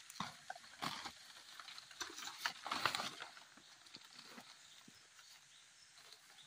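Rustling and crackling of large palm fronds and dry leaf litter as fronds are handled and set down on the forest floor, with light footsteps in the leaves; a busier patch of rustling comes about two to three seconds in.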